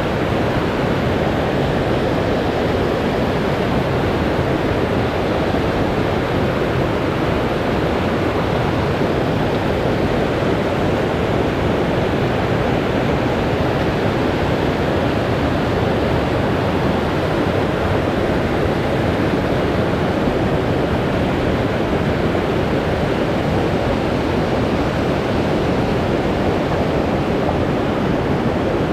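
Loud, steady rush of water, an even hiss that holds without a break.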